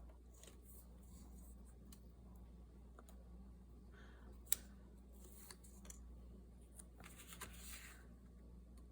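Faint handling of paper and tape on a craft table: scattered small clicks, one sharp tap about halfway through, and a short rustle near the end.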